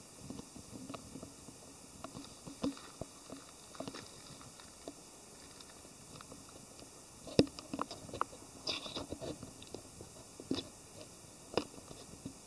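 Irregular clicks and knocks of handling noise on a handheld camera's microphone, with a sharp knock about seven seconds in and a few more near the end.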